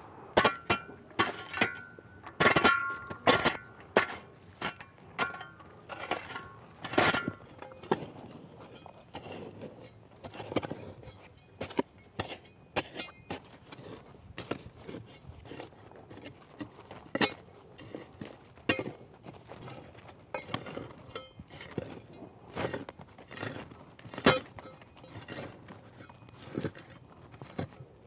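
A steel shovel and gloved hands working soil into hollow concrete retaining-wall blocks: irregular knocks, thuds and scrapes, with ringing metallic clinks in the first several seconds and one sharp knock near the end.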